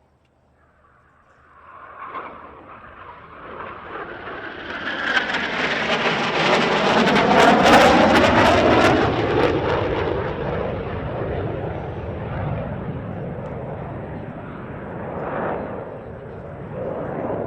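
T-38 Talon jet trainers' twin turbojets on a low flyby: the jet noise builds over several seconds, peaks about eight seconds in as they pass overhead with the pitch sweeping down, then slowly fades away.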